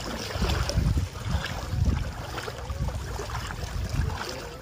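Wind buffeting the microphone in uneven gusts, with water sloshing and splashing around legs wading through shallow seawater.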